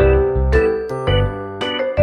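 Background music: a light keyboard tune over a steady bass beat of about two notes a second.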